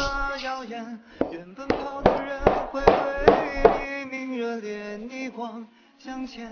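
A kitchen knife chopping through a rolled dough log and striking a steel worktop: seven sharp, evenly spaced knocks, about two and a half a second, stopping about two-thirds of the way in. A song with singing plays underneath throughout.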